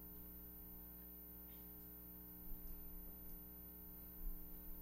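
Steady electrical mains hum in the sound system, with a couple of faint low thumps about two and a half and four seconds in.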